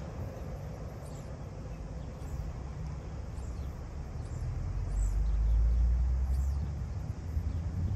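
Outdoor ambience of birds chirping in short high calls over a low rumble of wind on the microphone. The rumble swells a little before halfway and eases off near the end.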